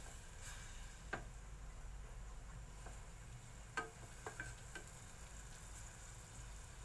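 Wooden chopsticks stirring pork belly in an aluminium pot, tapping the pot a few times, over a faint sizzle of the pork simmering in its braising liquid.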